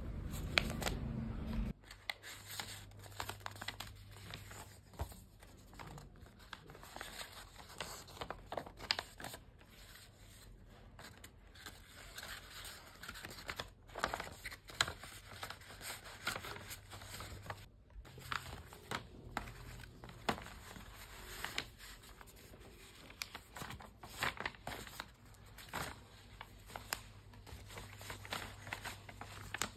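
Hands handling paper: irregular crinkling and rustling with short tearing sounds, over a faint steady low hum. A louder low rumble stops suddenly about two seconds in.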